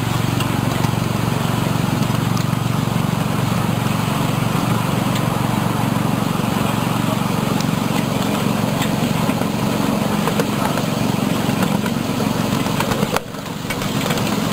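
Ride-on miniature passenger train running along its track: a steady low rumble of the train's wheels and running gear, dipping for a moment about thirteen seconds in.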